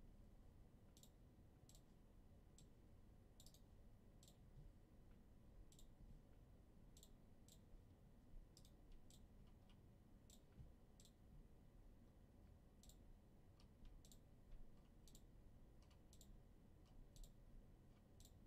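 Faint, irregular clicking of a computer mouse and keyboard, with some clicks coming in quick pairs, while entries are pasted into a web randomizer and its rounds are clicked through.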